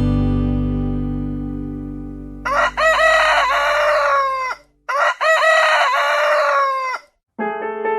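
A rooster crowing twice in quick succession, each crow about two seconds long, over the last of a music chord dying away.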